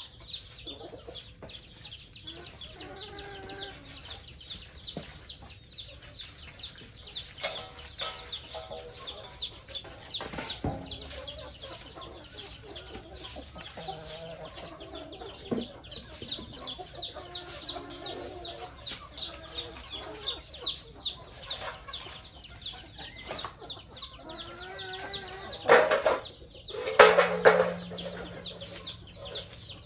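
A flock of chickens clucking, over constant high peeping, with two loud calls near the end.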